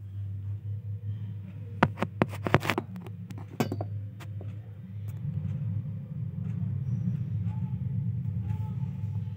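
Handling noise from a phone being moved and set down on a tile floor: a quick cluster of sharp knocks and clicks about two to four seconds in, over a steady low rumble that grows louder partway through.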